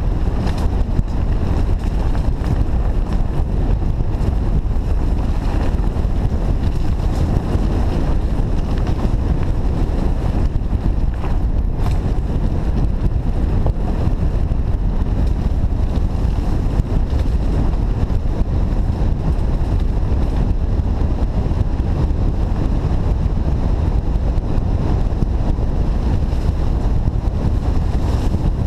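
Wind rushing over the microphone during a fast mountain-bike descent, a steady loud low rumble mixed with the Trek Fuel EX 8's knobby tyres rolling over a dirt trail. A few brief rattles and clicks come through, around a second in and again near the middle.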